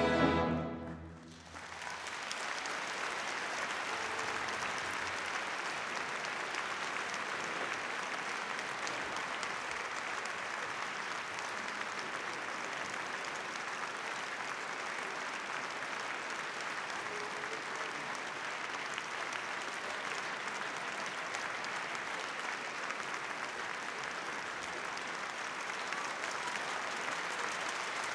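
A symphony orchestra's final chord cuts off within the first second, and after a brief hush the concert audience breaks into steady applause that keeps on evenly.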